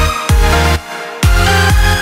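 Background electronic dance music with a heavy bass beat about twice a second; the bass drops out for a moment just under a second in, then comes back.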